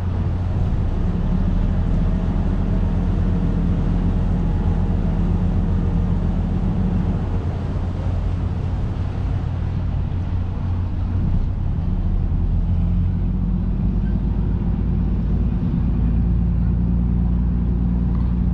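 Engine of a river tour boat running as it manoeuvres just off the pier: a steady low drone that swells and eases a little.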